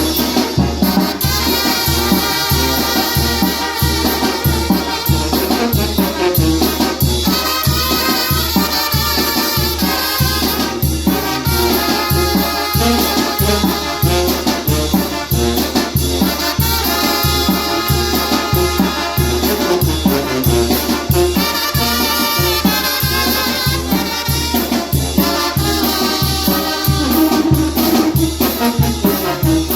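Salsa music with a lead trumpet playing melodic phrases over a steady, pulsing bass and percussion beat.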